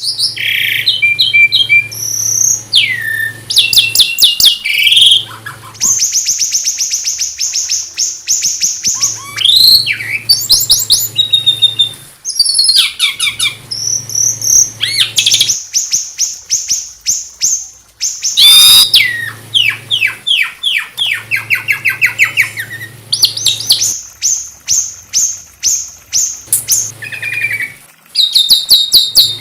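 Songbird singing a rapid, varied song of fast repeated trills, chips and short whistled glides, phrase after phrase with brief pauses. A steady low hum runs under many of the phrases.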